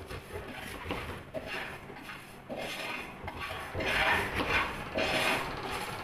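Kitchen knife slicing through a raw carrot on a plastic cutting board, one cutting stroke after another with the blade meeting the board. The strokes get louder about four seconds in.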